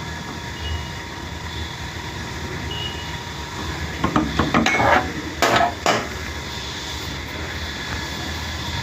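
Metal clinks and taps of tools and blade parts being handled, a quick cluster of them about four to six seconds in, over a steady low hum.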